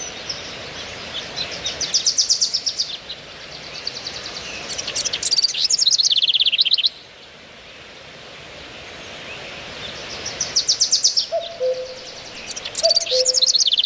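Songbirds singing outdoors: four bursts of fast, high trills, each a second or two long, over a steady background hiss. Near the end, short low whistled notes from another bird join in.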